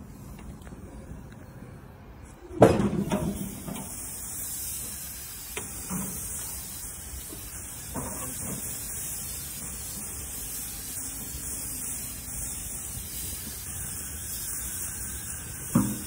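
Skewered meat sizzling on a hot grill grate: a loud knock about three seconds in, then a steady sizzling hiss with a few small clicks and knocks.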